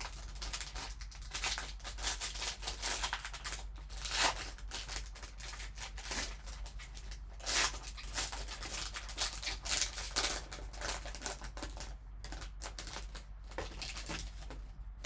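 Foil wrapper of a trading card pack crinkling and tearing as gloved hands peel it open: a dense, uneven run of crackles and rustles.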